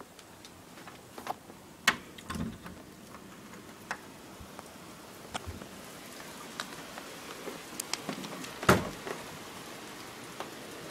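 Scattered light clicks and taps, a few seconds apart, with a louder knock about three-quarters of the way through.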